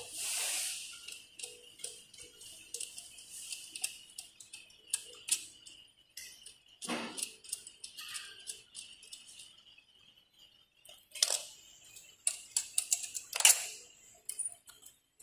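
Irregular small metallic clicks and ticks of a screwdriver working screws and fittings on a metal fogger frame, with a few louder knocks in the second half.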